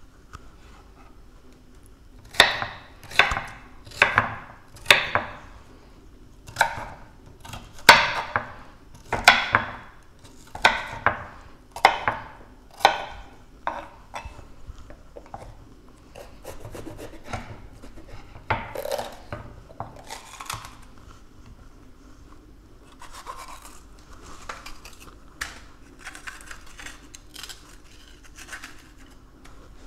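Knife chopping a green bell pepper on a wooden cutting board: a run of crisp chops, about one a second, for roughly ten seconds, then softer scraping and rubbing on the board with a few more chops.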